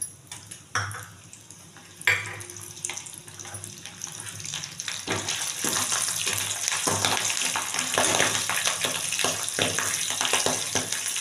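Peanuts, roasted gram and garlic frying in hot oil in an aluminium kadai, with a sharp knock about two seconds in. From about five seconds in, a sizzle builds and grows louder, thick with small pops and crackles as the pieces splutter in the oil.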